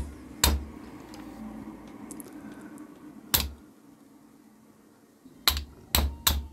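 Small hammer tapping a socket against the gudgeon pin of a Villiers 9D two-stroke piston, driving the pin out of the heated piston. Five sharp taps, widely spaced at first, the last three coming in quick succession near the end.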